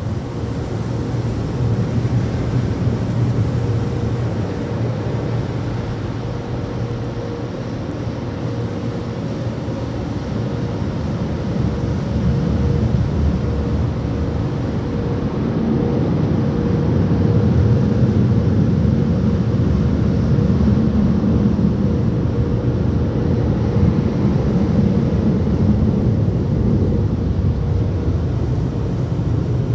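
Car wash tunnel dryer blowers running, heard from inside the car as it passes beneath them: a steady heavy rush of air with a low drone and a faint steady hum, growing louder about halfway through.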